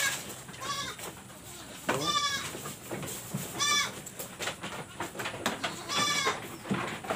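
A goat bleating four times with a quavering pitch. The first call is short and faint, and the last three are longer and louder.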